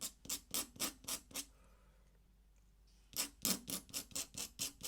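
Ink pen nib scratching across paper in quick, even hatching strokes, about five or six a second. The strokes pause for about a second and a half near the middle, then resume.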